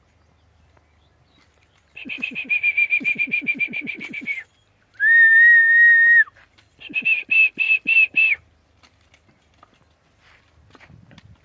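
Human whistling in three parts. First a fast run of short chirping whistle pulses, about seven a second, for two and a half seconds. Then one steady held note for about a second, then a shorter, slower run of pulses.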